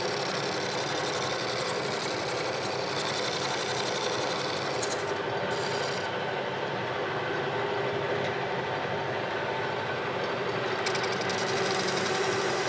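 Metal lathe running, with a steady hum from its drive, while a hand-fed tool faces the end of a cast iron casting; the scratchy cutting sound fades around the middle and comes back near the end.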